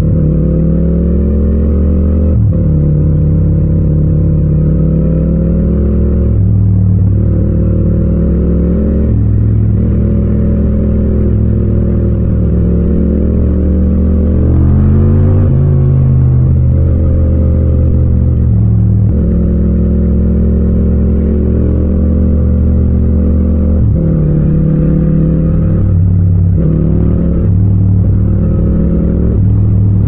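Yamaha MT-07's parallel-twin engine heard from the rider's seat under way, its note holding steady, breaking briefly every few seconds, and climbing in a longer pull about halfway through.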